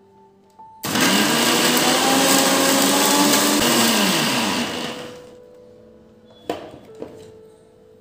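Bosch mixer grinder's motor switched on with a steel jar fitted: it whirs up to speed about a second in, runs steadily for about three and a half seconds, then is switched off and spins down. Two light knocks follow near the end.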